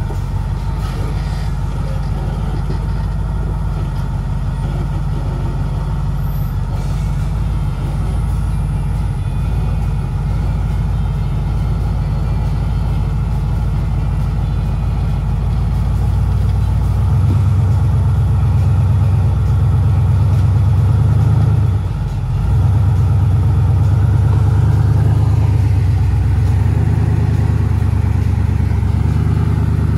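Off-road rock-crawling rig's engine running under load. It gets louder about halfway through, drops off for a moment about two-thirds of the way in, then pulls again.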